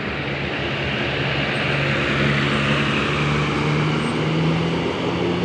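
Diesel engine of an intercity bus running, its low tone rising slowly as it pulls away, over steady road noise.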